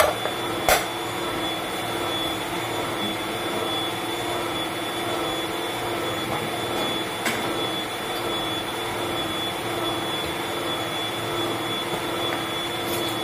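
Steady whirring hum of a small electric motor running throughout. About a second in, a single clack as a small ceramic bowl is set down on the counter.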